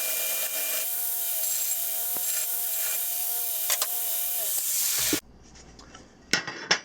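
A 2x72 belt grinder with a coarse 36-grit belt grinding the edge of a half-inch steel plate to square it: a steady, hissing grind over the machine's whine that stops abruptly about five seconds in. A few light clicks follow.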